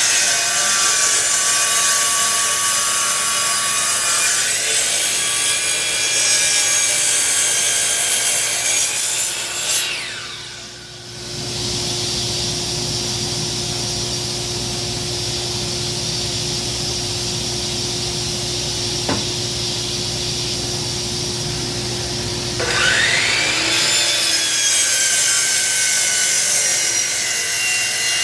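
Electric power tool running against wood, a loud hissy rasp that winds down about ten seconds in. A lower, steady hum with one held tone carries on until the tool spins up again near the end and resumes working the wood.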